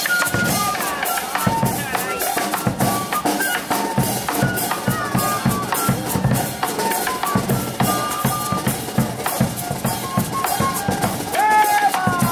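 Live street band playing Colombian folk dance music: snare drum, a deep hand drum and cymbals beating a quick steady rhythm under a high melody of held notes that step up and down.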